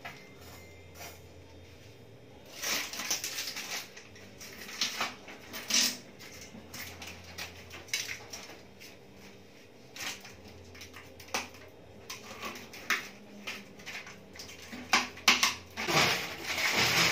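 Protective plastic film crackling as it is peeled and crumpled off a new cooking range, with scattered clinks and knocks of metal range parts being handled. A low steady hum runs underneath.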